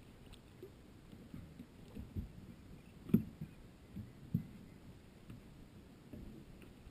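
A few dull, hollow knocks and bumps on an aluminum fishing boat as a landing net and gear are handled on the deck while a trout is fought and netted. The loudest knock comes about three seconds in, with smaller ones around two and four seconds.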